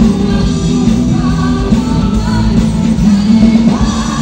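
Live rock band playing a praise song through the stage PA, with a lead singer over drums, bass and guitars.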